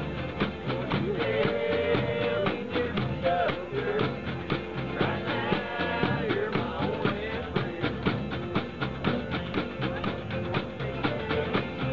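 Small unamplified band playing rock and roll: guitar and drums keeping a steady beat, with a voice singing over them.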